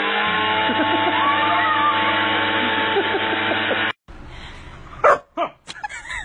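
A small electric motor running with a steady whine, which cuts off abruptly about four seconds in. After it come a few short, sharp sounds.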